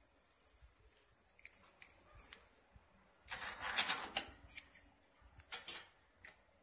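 Automatic taping machine for USB charger shells running through its cycle: light mechanical clicks, a loud harsh rush of noise lasting about a second a little over three seconds in, and a shorter one about two seconds later.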